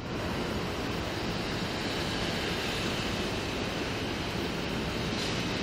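Steady roadside rushing noise of passing highway traffic picked up by a police body camera's microphone, even and unbroken.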